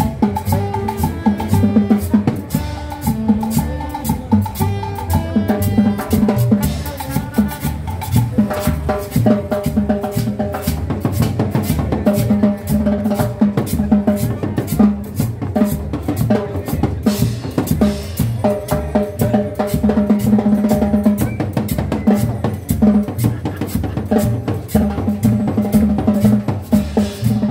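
Upbeat Latin dance music in the salsa style, with heavy drums and percussion over bass and pitched instruments, keeping a steady beat.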